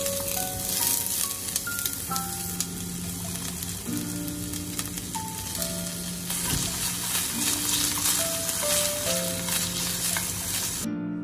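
Food sizzling and crackling in hot oil in a frying pan, a dense steady hiss full of small pops that cuts off abruptly near the end. A slow background melody of single held keyboard-like notes plays over it.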